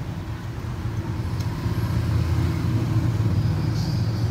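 Steady low rumble of a running motor-vehicle engine, growing a little louder.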